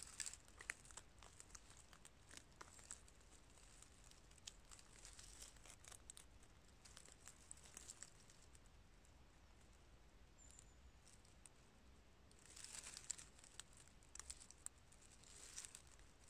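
Faint crackling and rustling of dry pine needles, leaf litter and crumbly rotten wood as a gloved hand digs around the base of a stump, in scattered small snaps with two busier bouts in the last third.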